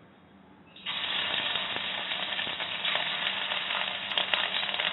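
Pieces of egg-and-cornflour-battered chicken dropped into hot oil in a kadai, bursting into a sizzle about a second in and frying on with a steady hiss and faint crackles.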